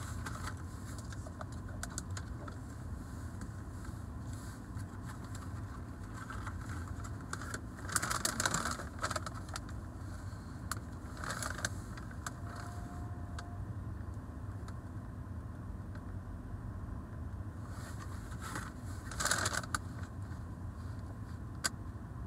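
Paper food packaging and a paper bag being handled and rustled in short bursts, with scattered light clicks. Under it runs the steady low rumble of a car cabin.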